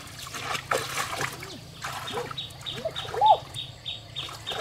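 Water splashing in the shallows of a pumped-down pond. Short rising-and-falling calls follow, the loudest about three seconds in, and a regular high chirping about three times a second starts about two seconds in.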